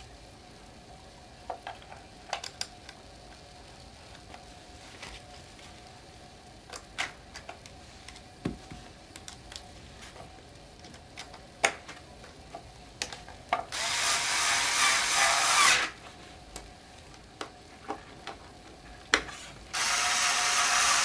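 Electric screwdriver running in two bursts of about two seconds each, the second near the end, driving screws home, with scattered clicks and taps of screws and parts being handled between.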